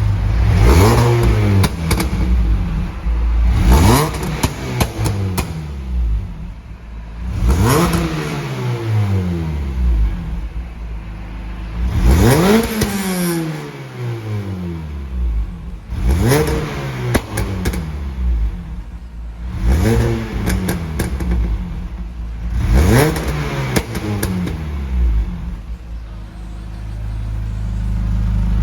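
Mini Cooper S R53's supercharged 1.6-litre four-cylinder, run without its catalytic converter, being revved about seven times, every three to four seconds. Each time it rises sharply and falls back to idle, with sharp crackles around the revs.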